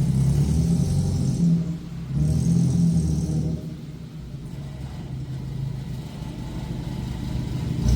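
Car engine revved twice, then running more quietly with the pitch slowly building.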